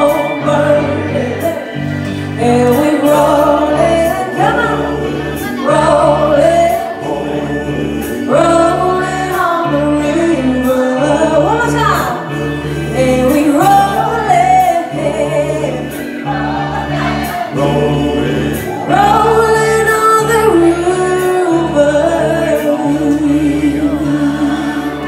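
Stage music: a singer's lead vocal over backing music with a steady bass beat.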